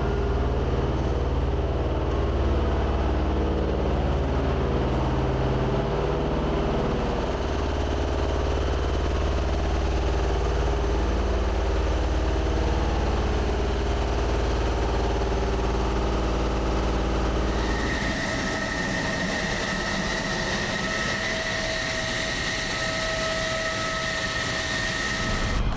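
Steady low mechanical hum of engine-driven flight-line equipment around the F-16s. About 18 s in it cuts abruptly to a steady high-pitched whine over a hiss.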